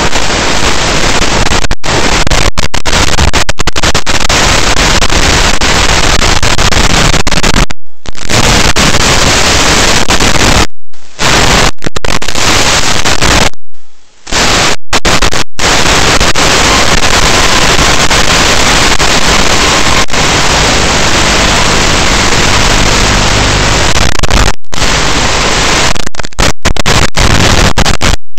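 Loud, steady static hiss from an analog FPV video link's audio channel, cutting out abruptly for a moment several times, the longest dropout about halfway through.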